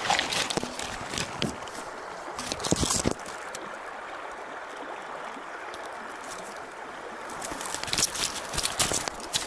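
Taiga river flowing steadily, with several sharp clicks and splashes in the first three seconds and again near the end.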